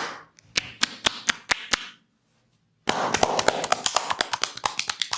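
Massage percussion: hands slapping rhythmically on a person's body, about four sharp slaps a second at first, then after a short pause a faster run of slaps over the hiss of hands rubbing.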